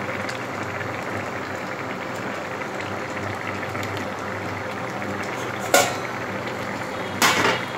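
Egg and potato curry (dimer jhol) boiling hard in a karai, a steady bubbling. A sharp clink comes a little before six seconds in, and a short clatter near the end.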